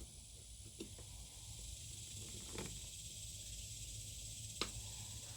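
Faint steady hiss with a few light clicks and taps, about a second in, midway and near the end, from small handling work on the frame's hanging wire and screws.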